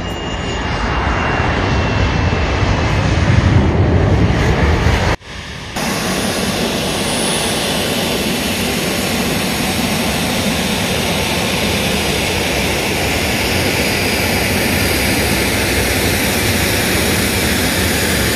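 Twin-engine jet with rear-mounted turbofan engines running as it moves along the runway and taxis, a steady jet rush that grows louder over the first few seconds. There is a sudden break just after 5 s, then the engines go on at a steady level.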